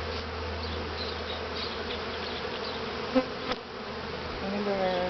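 Honeybees buzzing steadily around an open top-bar hive, with one sharp click about three and a half seconds in.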